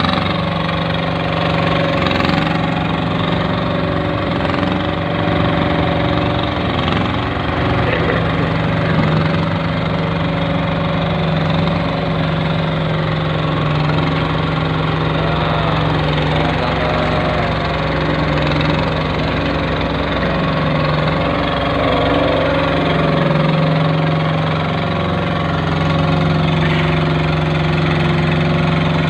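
Engine of a concrete curb-stone extruding machine running steadily at an even speed, its pitch dipping slightly now and then.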